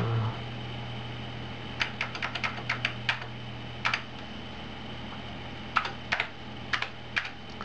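Keys on an Amiga computer keyboard being pressed to delete and retype a line of text: a quick run of about eight clicks about two seconds in, a single press near four seconds, then a few more scattered presses, over a steady low hum.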